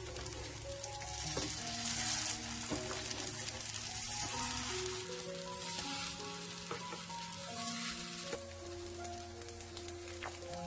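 Tuna and tofu patties sizzling steadily as they fry in oil in a nonstick pan, with a few light clicks of a spatula and chopsticks as the patties are turned and pressed. Background music plays along.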